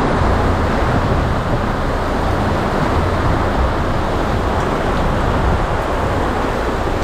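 Steady, loud rush of heavy rain and wind at sea around a sailboat in a thunderstorm, with a deep low rumble underneath.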